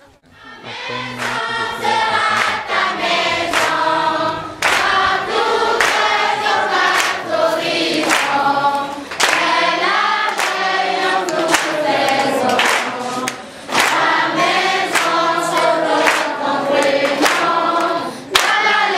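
A group of voices singing together in chorus, over a sharp, steady beat of claps or strokes about twice a second. The singing starts about half a second in.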